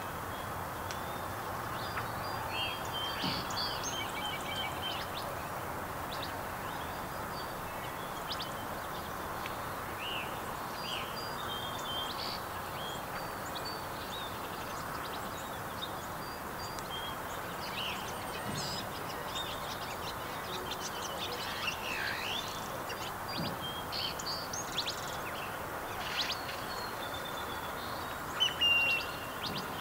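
Many small birds chirping and whistling in short, scattered calls, over a steady background hiss, with one louder call near the end.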